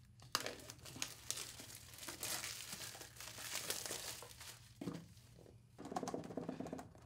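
Thin plastic shrink-wrap being torn and pulled off a cardboard product box, crinkling. It starts with a quick rip, and there is softer, lower rustling near the end as the box is handled.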